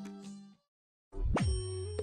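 Background music changing tracks: a plucked-string folk tune fades out about half a second in, a brief gap of dead silence follows, then a playful new track starts with a quick downward swoop over a low held bass note.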